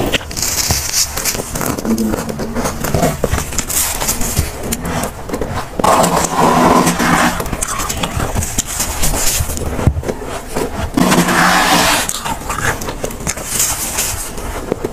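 Freezer frost and soft ice being scraped up and crunched close to the microphone: a continuous run of crunching and scraping, with louder bursts about six and eleven seconds in.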